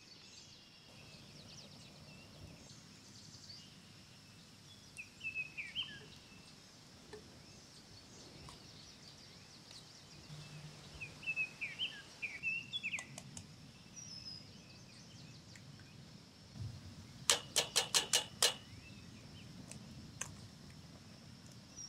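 Outdoor ambience with birds chirping in short calls over a faint steady high hiss. Near the end comes a quick run of about seven sharp clicks, the loudest sound here.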